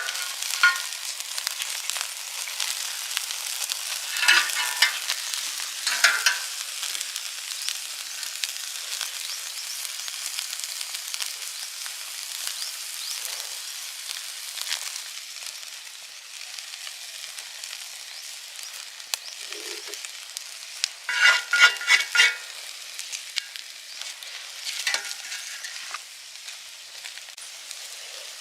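Steak sizzling over a wood fire: a steady hiss with a few louder bursts of crackling, the loudest cluster about three-quarters of the way through.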